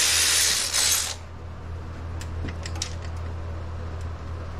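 A handheld cordless drill runs steadily and stops about a second in, followed by a few light metallic clinks of tools and parts.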